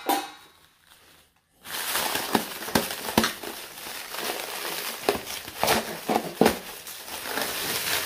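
Plastic cling film crinkling and rustling as it is cut and pulled off a large steel frying-pan disc, with a few sharp clicks and taps among the rustle. It starts after a short near-silent moment about a second and a half in.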